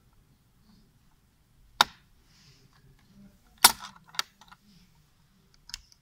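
Sharp clicks of an LGA1150 CPU socket's load plate and retention lever being closed and latched over a newly seated Intel Core i7 4th-gen processor: one click about two seconds in, a louder pair a little before and after four seconds, and a faint one near the end.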